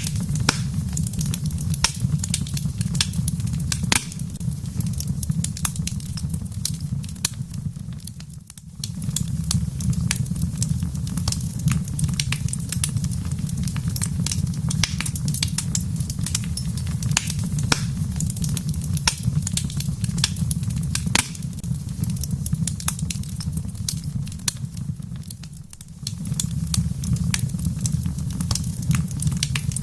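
Wood fire in a fireplace crackling, with frequent sharp pops and snaps over a steady low rumble; the rumble drops away briefly twice, near a third of the way in and again near the end.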